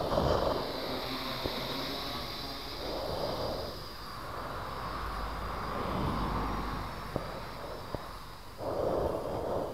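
X500 Reptile quadcopter's electric motors and propellers buzzing in flight, a steady high whine whose pitch shifts as the throttle changes. Three short whooshes come through: one at the start, one about three seconds in and one near the end.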